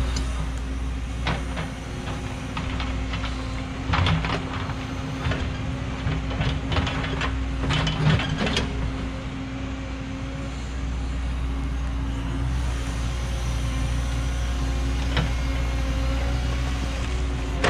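Cat 314E excavator's diesel engine running steadily under work, with the bucket knocking and scraping on rock and dirt several times, mostly in the first half.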